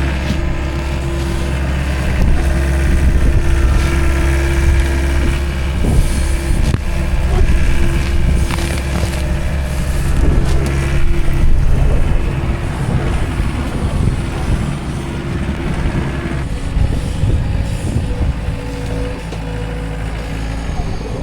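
Skid loader's engine running at working revs while it shifts a corn-stalk end cap and pulls a wrapped bale off the stack, with a few scattered knocks and clanks. About three-quarters of the way through the engine settles to a lower, steadier note.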